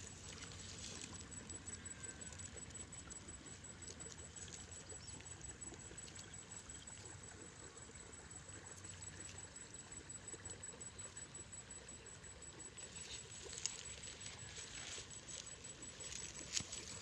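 Faint rustling and light crackling of dry grass stalks as an eel-like baim fish wriggles through them, over a low steady hiss, with a few sharper crackles in the last few seconds.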